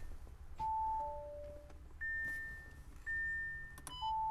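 A slow series of soft electronic chime tones, each a clean single pitch that fades away, falling high–middle–low and repeating, over a low steady hum.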